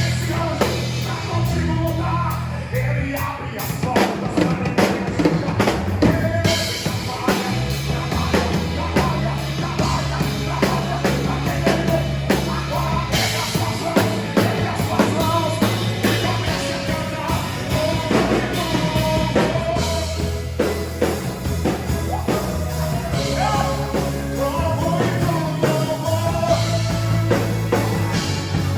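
Live gospel band playing an instrumental passage with a full drum kit, bass and a wavering melody line, with some singing over it.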